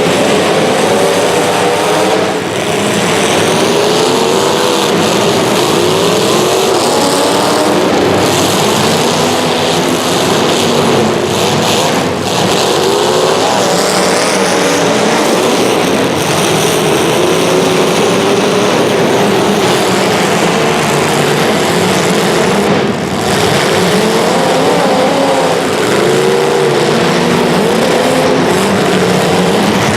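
Several small race-car engines running together through a race heat, their pitches rising and falling and overlapping as they rev through the laps.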